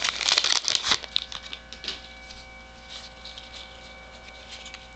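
Topps baseball card pack wrapper crinkling and tearing open for about the first second, then faint rustles and ticks of cards being handled over a faint steady hum.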